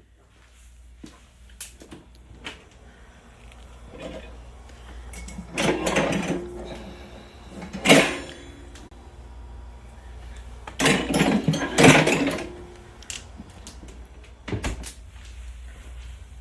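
Bumps, rubbing and scraping from something being handled, in three bouts with a sharp knock near the end, over a steady low hum.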